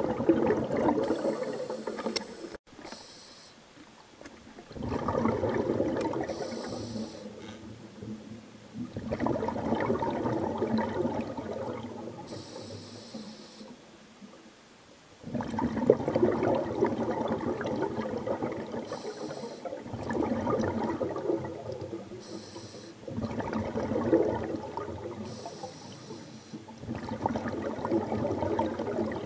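Scuba diver breathing through a regulator underwater: a burst of exhaled bubbles gurgles out about every four to five seconds, with a short faint hiss of inhaling between the bursts.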